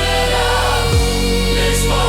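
Song music with choir-like voices over sustained chords and a deep bass, changing chord about a second in.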